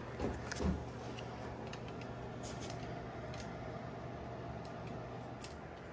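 Light clicks and taps of N scale model freight cars being handled and set on the track, with two soft knocks in the first second and a few faint clicks after. A steady low hum lies under them.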